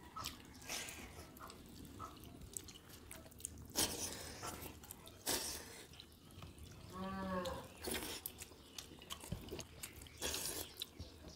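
Two people eating water rice with their hands from steel plates: soft chewing and wet squishing of rice, with scattered short smacks and clicks. A short pitched sound sounds once about seven seconds in.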